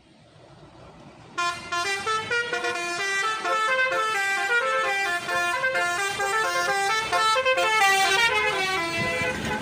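Bus telolet horn playing a quick melody of stepping notes, beginning sharply about a second and a half in.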